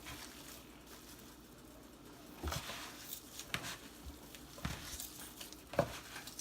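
Canned salmon being squished and picked through by hand in a mixing bowl while checking for bones. Quiet at first, then a scatter of soft squishes and light knocks through the second half.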